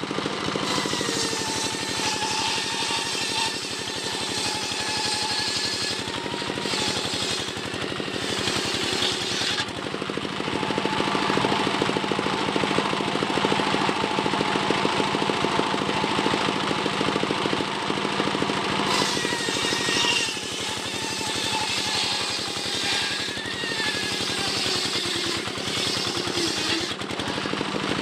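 Circular saw bench ripping a teak log lengthwise, the big toothed blade running steadily under load with a whine that wavers and dips in pitch as it bites into the wood.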